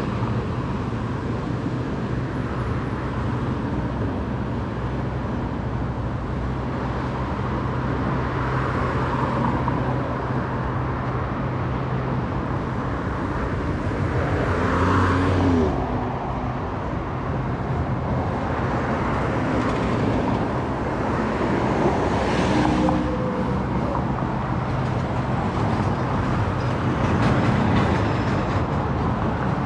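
City street traffic: cars passing over a steady low engine hum, with louder vehicles going by about halfway through and again later.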